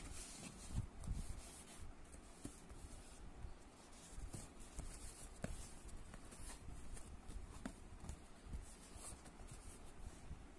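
Faint rubbing, scraping and light knocks of a cardboard box being handled and turned over, with a few soft thumps in the first couple of seconds.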